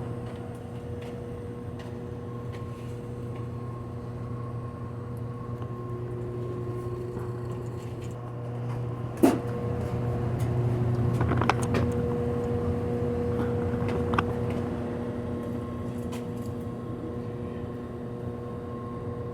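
Steady hum of a high-efficiency furnace's fan running, with one sharp knock about nine seconds in and some lighter knocks and clatter a few seconds later.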